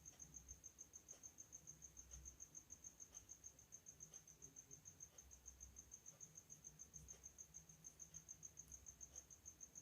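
Near silence, with a faint high-pitched trill pulsing about seven times a second: a cricket chirping.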